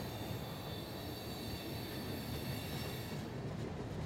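Freight train cars, covered hoppers and boxcars, rolling past with a steady rumble of steel wheels on rail. High-pitched wheel squeal rides over it and dies away about three seconds in.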